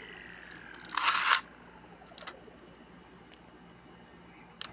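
Plastic Beyblade X Battle Pass gear whining as it spins down and fades, then a short loud plastic rattle about a second in, followed by a few light plastic clicks as the toy is handled.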